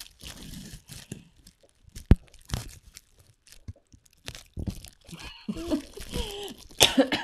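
Plastic bubble wrap being handled and pulled off a box, crinkling and rustling, with a few sharp snaps. The loudest snap is about two seconds in.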